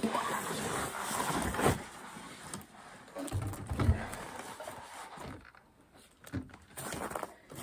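Packaging rustling as a heavy portable power station is worked out of its cardboard box, then a few dull thumps and knocks as the unit is lifted and set down on the truck's tailgate.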